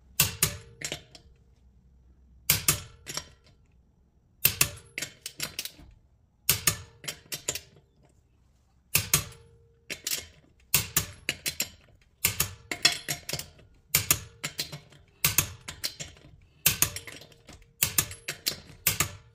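Click-type torque wrench set to 76 ft-lb on wheel lug nuts: bursts of several sharp clicks about every two seconds, from the ratchet head and the wrench clicking as the set torque is reached.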